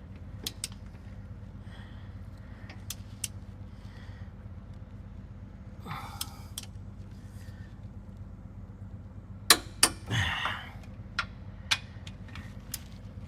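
Scattered sharp metallic clicks and knocks of hand tools working on a car's rear wheel hub, with two louder clacks and a short scrape about ten seconds in. A low steady hum runs underneath.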